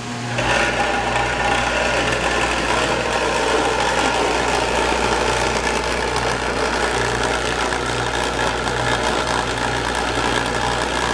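Chocolate tempering machine switched on about half a second in, then running with a steady low mechanical hum.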